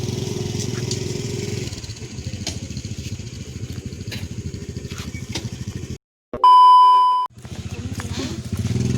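Motorcycle engine running steadily while riding. About six seconds in the sound cuts out and a loud, steady beep lasts about a second before the engine sound returns.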